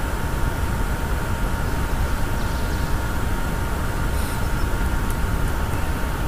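Steady background noise: a constant low rumble with a faint steady hum.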